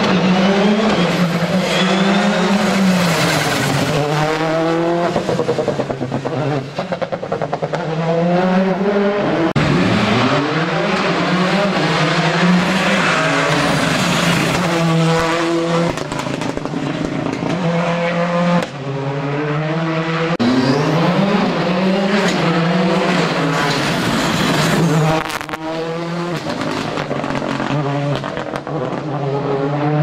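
Rally car engines at full throttle, pitch climbing and dropping again and again as they rev up through the gears and lift off for corners.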